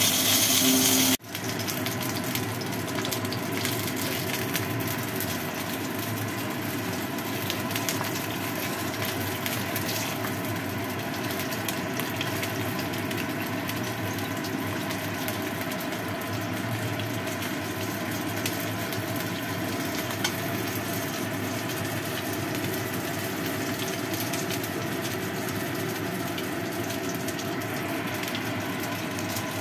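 A salmon head frying in hot oil in a wok: a steady, dense sizzle full of fine crackles and spits. A louder, different sound cuts off abruptly about a second in, before the sizzle settles in.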